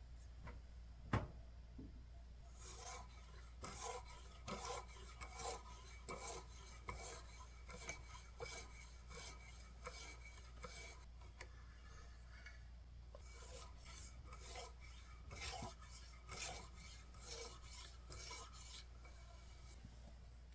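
Kitchen knife being sharpened by hand: the blade rasps across an abrasive sharpening surface in short strokes, about two a second, with a pause of a couple of seconds midway. A single sharp click about a second in is the loudest sound.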